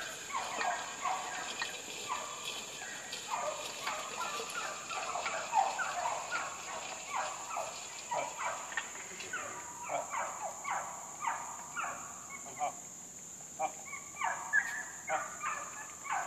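Farm fowl calling in a dense run of short clucking and gobbling calls, many overlapping, over a steady high-pitched drone.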